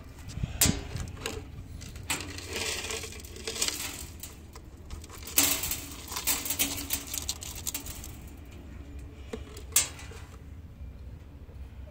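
Clear plastic jar knocked and shaken against a tabletop to tip grasshoppers out: scattered knocks and clatter with rustling, loudest about half a second in, again around five and a half seconds and near ten seconds.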